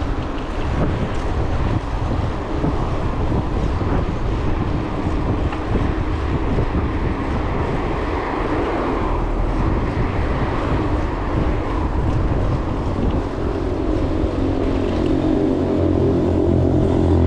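Wind buffeting the microphone of a riding cyclist's camera, over the rumble of tyres on the road. From about three-quarters of the way through, a car's engine hum comes in and grows a little louder.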